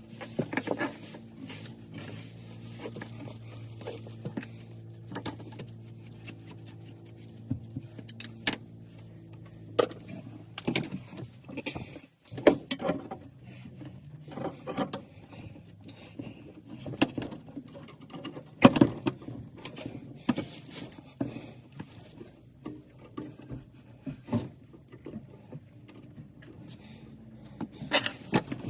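Scattered small clicks, clinks and knocks of parts and tools being handled, over a steady low hum that cuts off suddenly about twelve seconds in.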